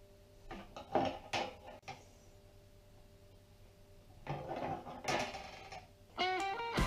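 Welded steel wire mesh being gripped and bent with slip-joint pliers: two bursts of metallic clicks and rattles as the wire shifts against the tabletop. Guitar music comes in near the end.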